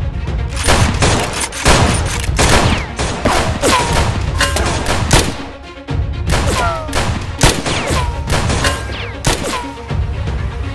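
Rapid gunfire sound effects over background music: a steady run of shots about two to three a second, some followed by a short falling whine, with a brief lull a little past the middle.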